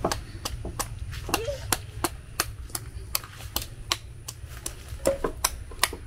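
Machete chopping at the fibrous husk of a coconut held in the hand: a quick, uneven run of sharp blade strikes, about three a second.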